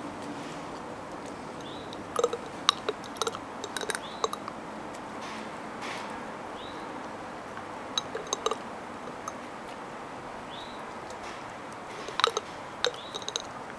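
Dog licking out an empty glass jar, its tongue and teeth clinking against the glass in three clusters of quick clinks, about two seconds in, about eight seconds in and near the end.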